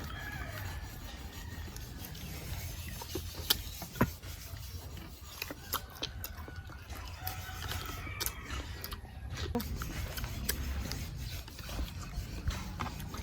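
Chewing and crunching of crispy fried pork belly skin close to the microphone, with scattered sharp clicks.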